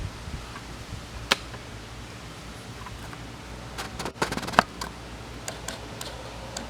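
Handling noises: a single sharp click about a second in, then a quick cluster of clicks and taps around four seconds in, over a low steady background hum.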